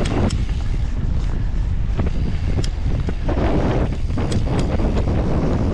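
Wind buffeting the microphone of a camera on a moving mountain bike, over a steady rumble with scattered sharp clicks and rattles, typical of riding a dirt trail.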